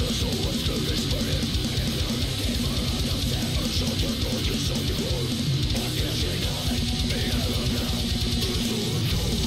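A heavy metal recording playing, dense with electric guitars and drums.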